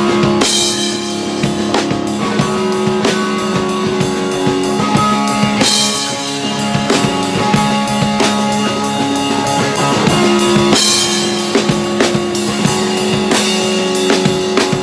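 Rock band jamming: a drum kit played with a fast, even run of cymbal strokes and three crash-cymbal hits about five seconds apart, over long held guitar and bass notes.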